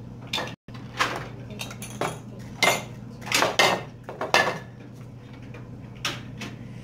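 White wire shelf racks clattering and clinking as they are handled, stacked and set down on a glass tabletop: a string of sharp knocks, the loudest in the middle, over a steady low hum.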